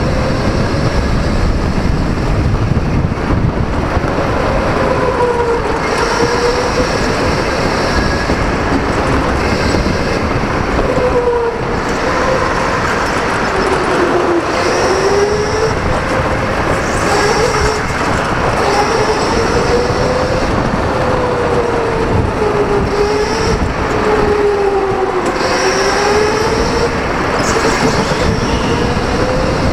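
Electric go-kart running at speed, its motor whine rising and falling in pitch every few seconds as it speeds up and slows for corners. Under the whine is a steady rushing noise from the tyres on the concrete floor.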